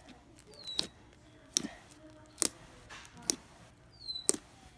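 Slime being pressed and played with, making sharp popping clicks about once a second, five in all, some with a short squeak just before the pop.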